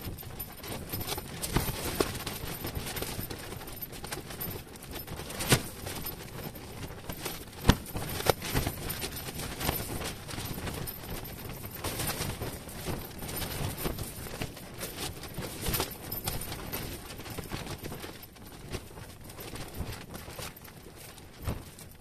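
Wind buffeting an ice-fishing tent: a steady rustling rush with irregular sharp flaps and knocks of the tent fabric.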